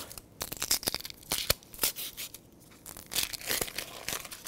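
Dry, papery yellow-onion skin crackling and tearing as it is peeled by hand, with a few sharp knocks of a chef's knife cutting through the onion onto a wooden cutting board.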